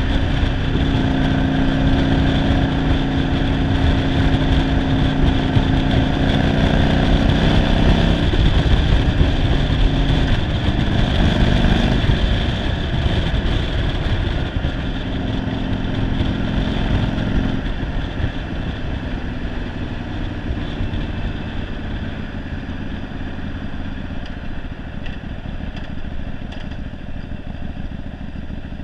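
Yamaha Virago 750 V-twin engine running under way, with wind rushing past; the owner says the bike, fitted with a single-carburettor conversion, runs poorly. The engine note is strong at first, shifts a couple of times, then eases and gets quieter from about two-thirds of the way through as the throttle is rolled off.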